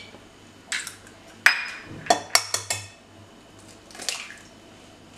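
Eggs being cracked against a glass bowl and opened by hand: a series of sharp taps and short ringing glass clinks, several close together in the middle and one more near the end.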